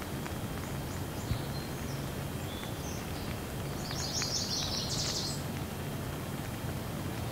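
Steady heavy rain falling on trees and grass, with a few faint drip ticks. A bird chirps over it in short high notes, loudest in a quick run of about a second past the middle.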